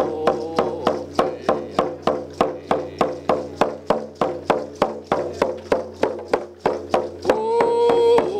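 Painted frame hand drum struck with a beater in an even beat, about three strokes a second, with a man singing over it. The singing drops away after the first moment and comes back strongly near the end.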